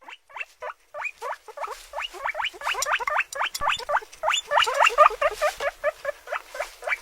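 A chorus of short, rising squeaks from several small animals, several calls a second and overlapping, building up after the first second.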